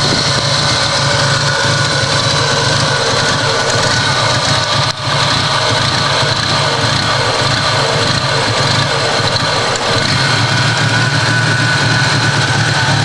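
Toyota Supra's 7M-GE straight-six engine idling very rough, with a brief dip in level about five seconds in.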